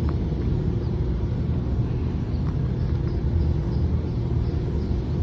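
Steady low background rumble with a faint steady hum and a few faint ticks.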